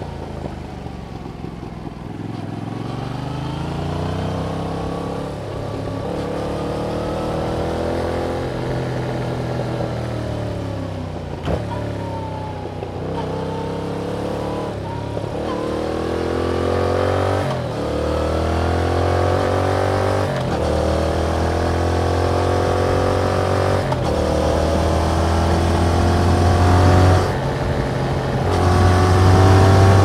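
A 2021 Yamaha MT-07's 689 cc parallel-twin engine on the move through its stock exhaust. The revs rise and fall again and again, with several sudden drops in pitch at gear changes, and run higher and louder near the end.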